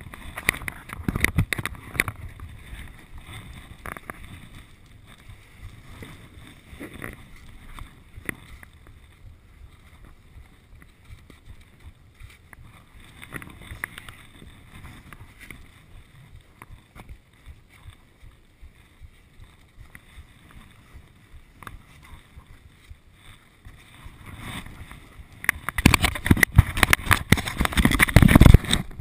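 Wind buffeting a body-worn GoPro's microphone and rustling against clothing while riding a chairlift. Near the end there is much louder rubbing and knocking as a hand handles the camera.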